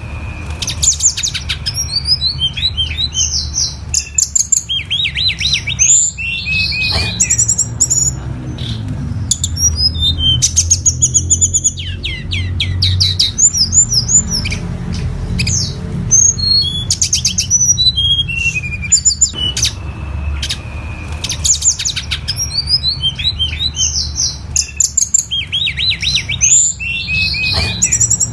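Tledekan gunung singing a long run of varied high phrases: fast trills, sharp chirps and quick sweeping notes, with brief pauses between phrases, over a steady low hum.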